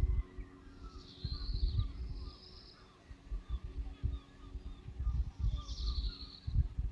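Sea wind buffeting the microphone in irregular low gusts, with faint bird calls about a second in and again near the end.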